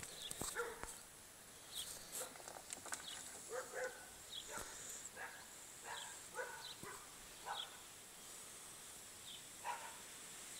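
A dog barking faintly, with short separate barks scattered every second or so.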